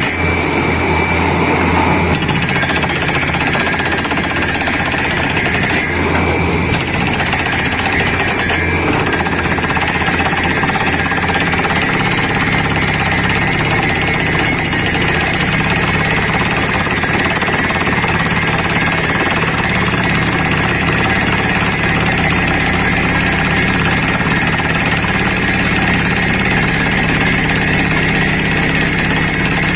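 Borewell drilling rig running: the compressed-air down-the-hole hammer clattering steadily as it drills, over the steady run of the rig and compressor engines.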